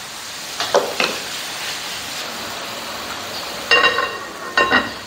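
Curry simmering in a clay pot, a steady bubbling hiss, as the pot's ceramic lid is set on: two light knocks about a second in, then two ringing clinks of the lid on the rim near the end.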